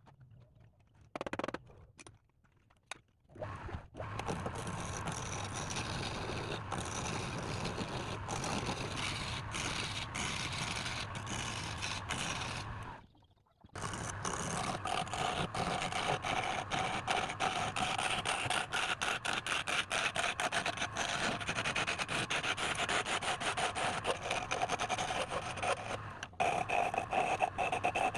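Continuous scraping and rubbing of a tool working wood. It stops for about a second near the middle, then resumes with a faint steady ring.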